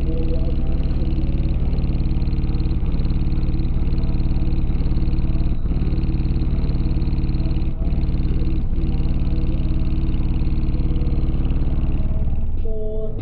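Car audio subwoofers playing loud, sustained bass with a buzzing, distorted edge, dipping briefly a few times.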